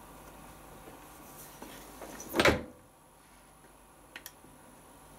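Hotpoint Aquarius Plus FDW70 dishwasher door pushed shut, one loud knock about halfway through, followed by two quick light clicks nearly two seconds later.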